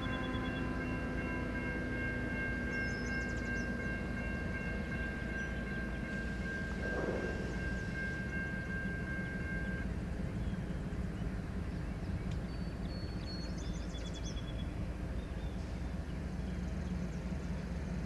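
Freight train's diesel locomotive idling with a steady low rumble. A steady high whine runs alongside it and stops about ten seconds in.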